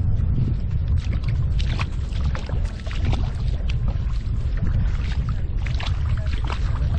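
Wind buffeting the microphone in a steady low rumble, with irregular water splashes and sloshing over it.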